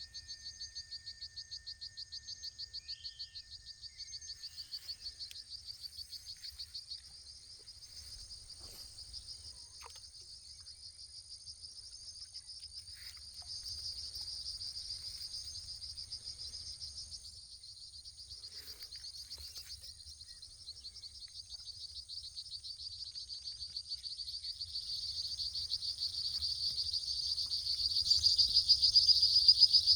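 Insects trilling in a dense, rapidly pulsing high chorus with a thin steady whine above it, growing louder toward the end. A faint low rumble sits underneath.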